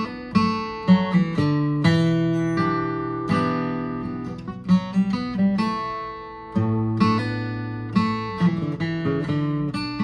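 Acoustic steel-string guitar flatpicked slowly: a bluegrass lick of single notes with hammer-ons and pull-offs, broken by a few strummed chords that are left ringing.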